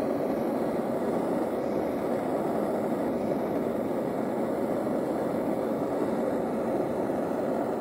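Handheld gas soldering torch running with a steady, low rushing flame noise, heating a silver wire basket setting until the hard solder at its joint flows.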